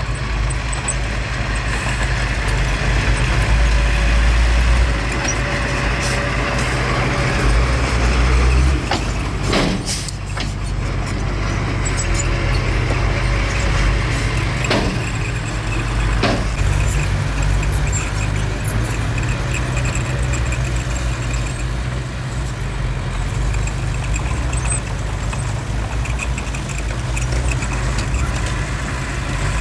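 Heavy diesel engine of earthmoving machinery running steadily, with a few sharp knocks partway through.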